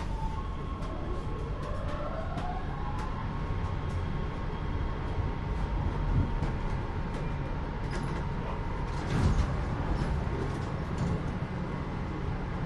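Los Angeles Metro Rail train running with a steady low rumble and a whine that rises in pitch about two seconds in, then holds steady. Scattered clicks and knocks run through it, with a louder knock about nine seconds in.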